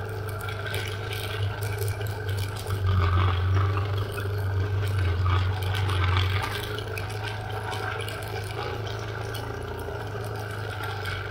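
A vehicle drives over a rough dirt trail, with a steady low engine hum and tyre noise. Rattling and clattering come from the bumpy ground. The engine hum grows louder for a few seconds in the middle.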